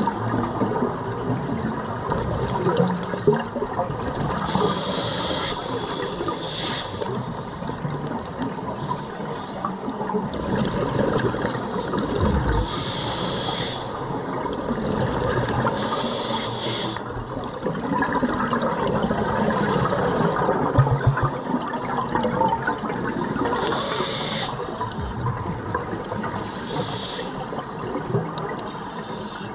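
Scuba breathing heard underwater through a regulator. Exhaled bubbles gurgle and rush continuously, and a short high hiss of an inhalation through the demand valve comes every three to four seconds.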